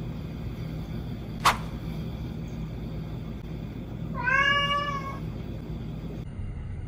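A domestic cat's single meow, about a second long, a little past the middle. A short sharp click sounds about a second and a half in.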